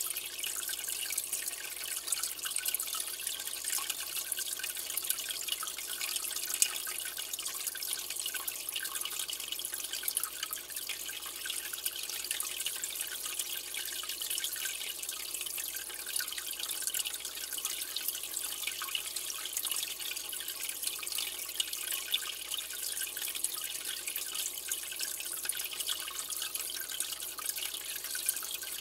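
Aquarium water trickling and dripping steadily, a continuous high patter of many small droplets.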